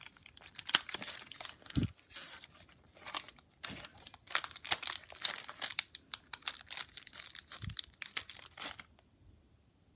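Clear plastic wrapper of a gummy pizza candy crinkling and tearing in irregular bursts as fingers work it open, stopping about nine seconds in.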